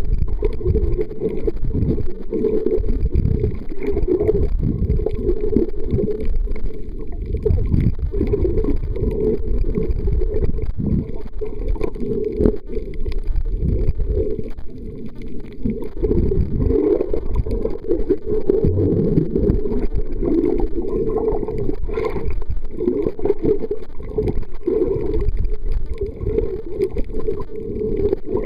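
Muffled, continuous underwater rumble and wash of moving water, rising and falling, with a few faint clicks and knocks scattered through it.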